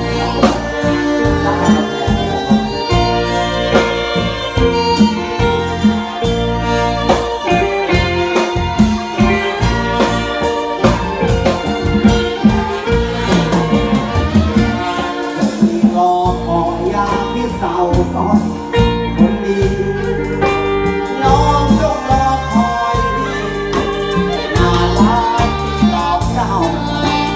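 Live Thai band music, with drums, electric guitar and brass, and a male singer singing over it.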